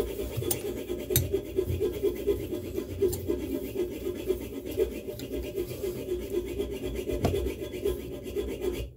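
Strap wrench rubbing and scraping against a seized tub spout as it is worked on the threaded iron pipe, a continuous rasping with a few sharp clicks.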